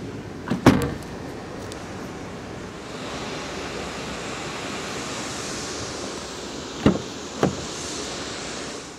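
A car's trunk lid pulled down and shut with one loud thump about half a second in, after a lighter knock. Near the end, two sharp clicks as the coupe's passenger door is unlatched and swung open.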